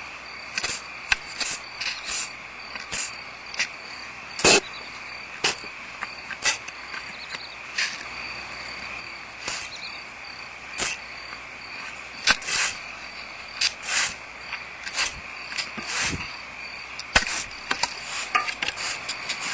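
Hand spray bottle squirting soapy detergent water, in many short, irregularly spaced sprays, over a steady high buzzing hum.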